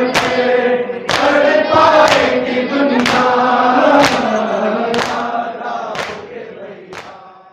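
A crowd of voices chanting in unison, with a sharp strike about once a second keeping the beat. The sound fades out near the end.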